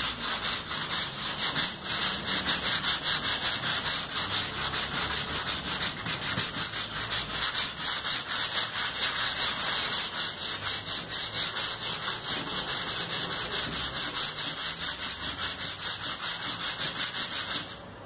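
Wet-and-dry sandpaper, folded in the hand, rubbed briskly back and forth over the painted steel top of an old refrigerator at about four strokes a second. It is knocking down rust blisters in the paint.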